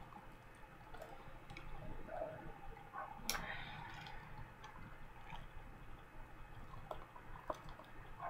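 Faint scattered clicks and taps of hands working at a small cosmetics package to get it open, with one sharper click about three seconds in.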